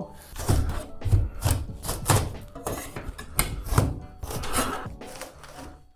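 Ceiling tiles being pried off with a hand scraper: a run of irregular wooden knocks and scraping, about a dozen sharp impacts.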